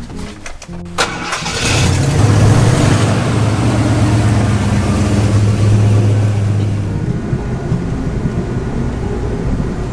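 A car engine starts about a second in, then runs with a steady low hum that eases off a few seconds later.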